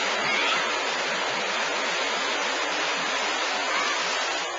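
Steady rushing and churning of a breaking wave in a wave pool, the surf foaming through the water.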